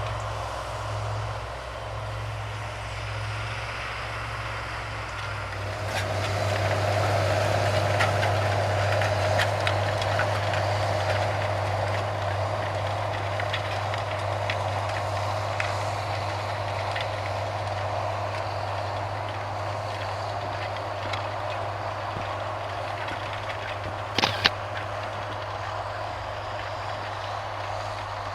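Tractor engine running steadily, getting louder about six seconds in, with scattered light clicks and a sharp double knock near the end.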